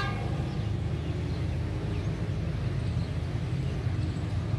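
Steady low rumble of an approaching diesel locomotive hauling an express passenger train.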